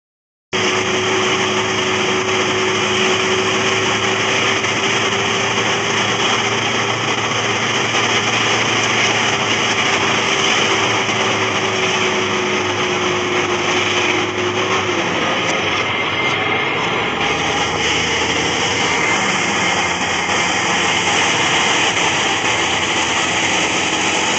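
A small engine running steadily, with a steady whine that drops slightly in pitch about fifteen seconds in and then fades.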